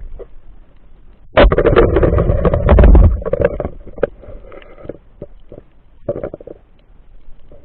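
Underwater spearfishing shot: a sudden loud burst of crackling and bubbling about a second and a half in, lasting nearly two seconds, as the spear strikes and holds a fish on the seabed. Scattered clicks and fainter bubbling follow.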